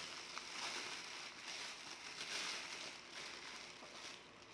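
Plastic courier mailer bag rustling and crinkling as it is handled and pulled open, a soft, uneven hiss of plastic.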